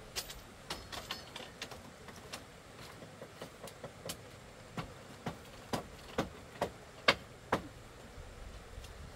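Hand tool striking wood or bamboo during house repair work: scattered lighter knocks at first, then a steady run of sharp strikes about two a second that grows louder about halfway through.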